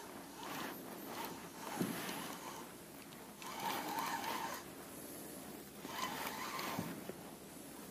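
Spinning reel being cranked in several bursts, a scratchy rasping whir of the rotor winding in braided line under the load of a hooked zander.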